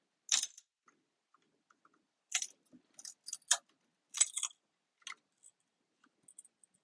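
Sharp metallic clicks and clinks, about six spread irregularly, as parts of a Tesla Model S battery module are worked apart and handled.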